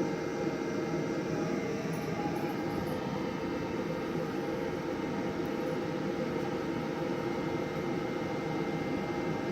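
Davy Crockett pellet grill's combustion fan running with a steady whirring hum during start-up, while the new igniter smoulders the pellets before they catch fire.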